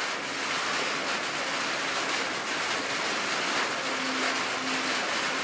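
Steady rain falling, an even hiss. A faint low hum joins about four seconds in.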